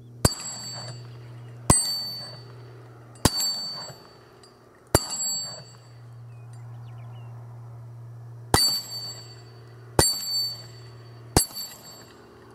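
Seven 9mm shots from a Glock 19 pistol, each answered by the high metallic ring of a hit steel target. The shots come about a second and a half apart, with a longer pause of about three and a half seconds midway, over a steady low hum.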